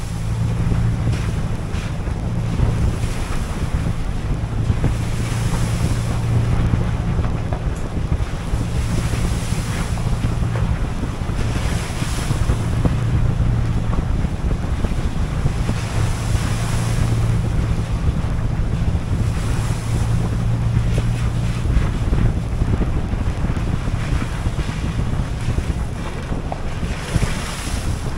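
Diesel locomotive running with a steady low engine hum that fades and comes back, under heavy wind rush on the microphone.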